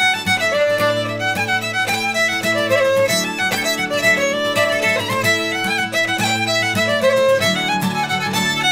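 Fiddle playing a traditional Shetland tune, bowed, over strummed chords on a steel-string acoustic guitar.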